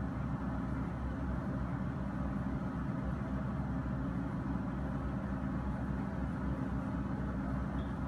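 Komatsu crawler excavator's diesel engine running steadily under load as it digs, a low, even engine sound with no distinct clanks.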